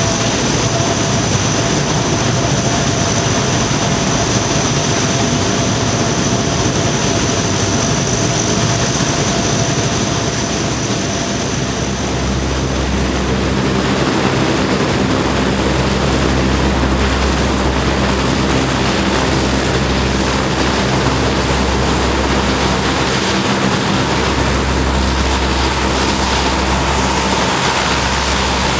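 A C-130 Hercules's four Allison T56 turboprop engines running on the ground: a loud, steady turbine whine with a high whistle. About twelve seconds in it gives way to a deeper drone of the propellers.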